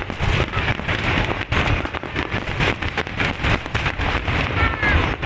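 Aerial fireworks display: dense, continuous crackling from glittering shells, over a stream of low booms.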